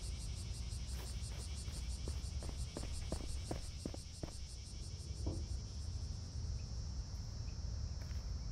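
Summer-evening crickets chirping steadily in a fast pulsing rhythm, several pulses a second, over a low steady rumble, with a few light taps in the first half.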